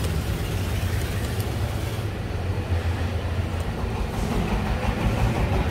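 Steady low rumble that rises and falls slightly, with a faint hiss above it and a few faint clicks.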